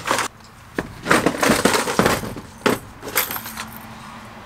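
Clear plastic tackle boxes being shifted and pulled from a shelf, the hard plastic knocking and the lures inside clattering, in several short bursts that stop about three and a half seconds in.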